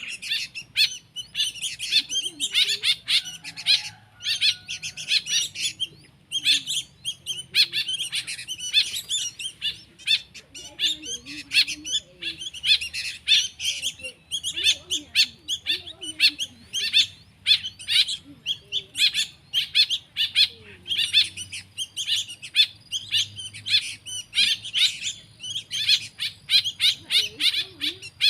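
Young songbird chicks chirping rapidly and without a break: the high, insistent begging calls of nestlings that cannot yet feed themselves.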